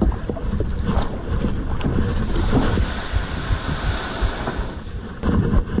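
Kayak being paddled, with paddle strokes and water sloshing against the hull, then the kayak pushing up through tall dry grass at the bank, rustling and scraping, with wind buffeting the microphone.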